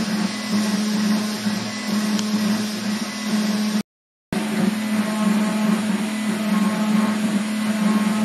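CNC router spindle motor running steadily while engraving a copper-clad PCB, a strong low hum with a hiss above it. The sound breaks off abruptly for about half a second a little before halfway, then resumes unchanged.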